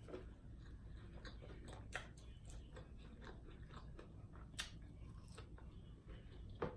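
Faint chewing of food, with a few scattered soft clicks, the clearest about four and a half seconds in.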